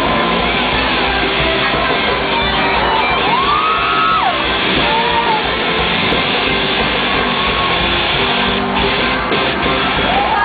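Loud live axé band music from a concert stage, with voices in the crowd shouting and whooping now and then over it.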